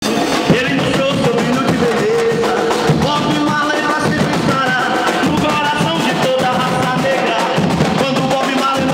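Afro-Brazilian drum group playing large bass drums and smaller drums together in a driving rhythm, with a melody line carried over the drumming.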